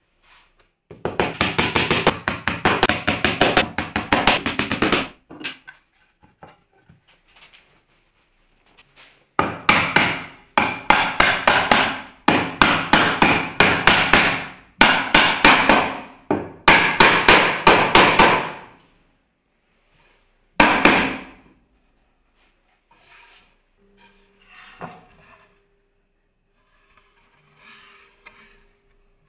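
Quick runs of hammer taps on wood, about six a second, with a last short burst a little after 20 seconds in, from tapping a board down onto wooden dowels in a dowel joint.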